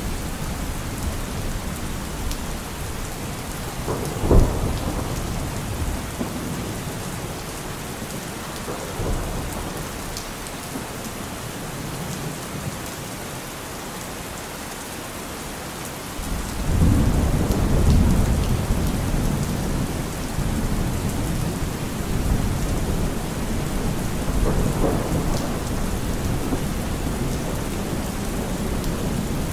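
Steady rain with thunder: a sharp crack about four seconds in, and a long low rumble rolling in a little past halfway.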